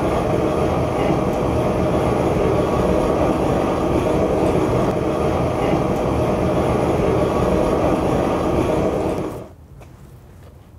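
Propane burner firing a raku kiln: a loud, steady rush of gas flame with the gas turned up. It drops away suddenly near the end.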